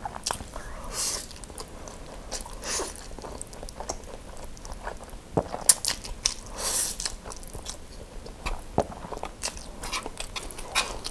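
Close-miked eating of saucy spicy noodles: wet mouth clicks and chewing, with a few longer slurps as bundles of noodles are pulled into the mouth, the first about a second in and another near the middle.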